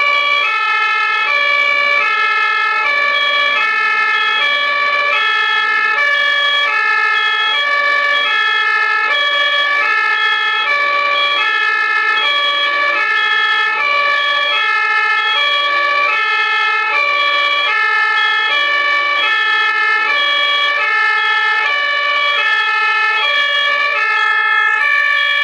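German ambulance two-tone siren (Martinshorn) sounding steadily, switching between a high and a low note roughly every three-quarters of a second.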